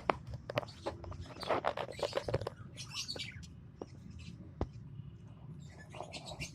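Lovebirds chirping: clusters of short, high, rapid chirps, with a few sharp clicks in between.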